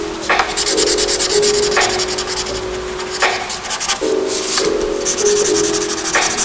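Felt-tip marker rubbing rapidly back and forth on paper, colouring in a solid patch in fast, even scratchy strokes. Background music with sustained notes runs underneath.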